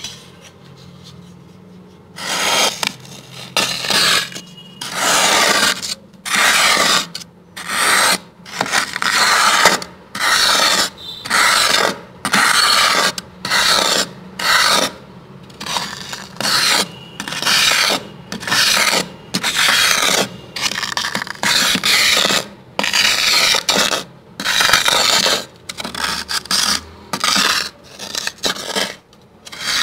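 A white plastic scraper scraping thick, packed freezer frost. It starts about two seconds in, then keeps up repeated rasping strokes, roughly one a second.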